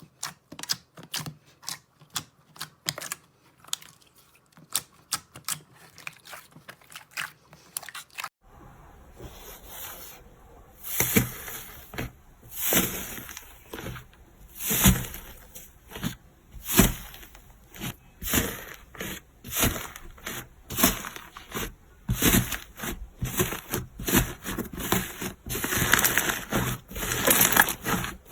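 Hands working slime: a quick run of small clicks and pops, then, after a cut about eight seconds in, slower presses about once a second, each a crackly squish.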